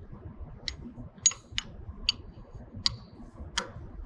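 About six sharp metal clicks, irregularly spaced roughly half a second apart: a wrench working on a water flow sensor as it is screwed back into its threaded port.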